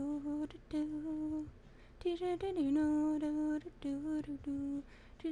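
A person humming a tune in long held notes, in a few short phrases with brief pauses between them.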